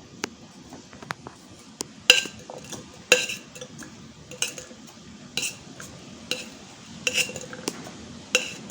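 About a dozen irregular clinks and knocks of kitchenware, some ringing briefly like metal, as sliced kamias (bilimbi) are put into a metal cocktail shaker.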